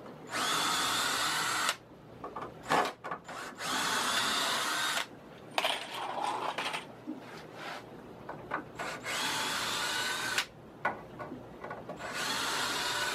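Cordless drill backing screws out of a pine board in the stand frame, running in four or five spurts of one to three seconds each. Knocks and wood clatter come between the spurts.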